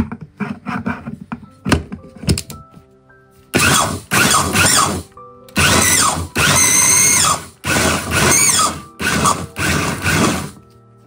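Electric food chopper's motor head grinding rolled oats into flour, run in about four bursts of a second or two each with short breaks between them. A few knocks come first as the motor head is seated on the bowl.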